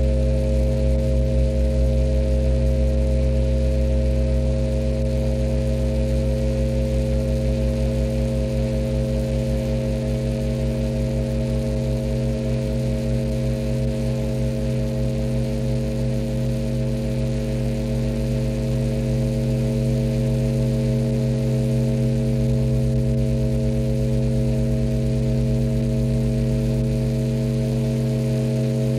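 Sustained drone of several steady tones held together, played on electric guitar through a MIDI controller, with a fast low pulsing beating underneath.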